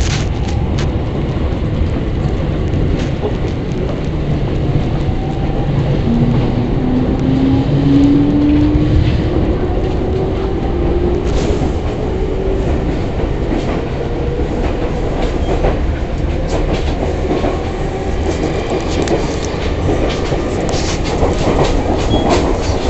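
Running sound from inside a JR East E231-500 series Yamanote Line train as it accelerates: the traction motors' whine starts about six seconds in and rises steadily in pitch, over a constant rumble of wheels on rail. Rail-joint clicks come in toward the end.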